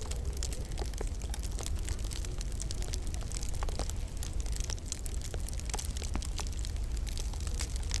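Wood fire crackling in a log burner: many small, sharp, irregular pops and snaps over a steady low rumble.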